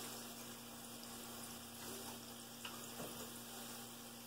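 Food sizzling faintly and steadily in a skillet on an electric stove, with a couple of light ticks of a metal spoon against the pan about two and a half and three seconds in.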